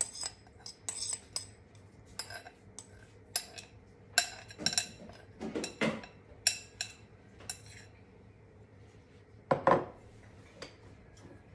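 Metal spoon scraping and clinking against a glass bowl and a small wire-mesh strainer as orange peel is scraped out of the bowl, a run of irregular clicks and scrapes, the loudest a little after three-quarters of the way through.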